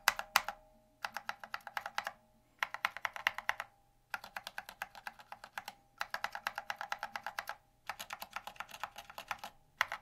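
Fast typing on filmed Gateron Clear linear switches under Domikey SA-profile ABS keycaps: about six quick runs of keystrokes, each a second or two long, with brief pauses between. The switches have thin films fitted between their top and bottom housings to take out wobble.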